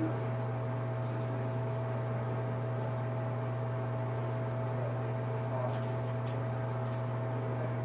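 Steady low mechanical hum with a faint higher whine, and a few light clicks near the end.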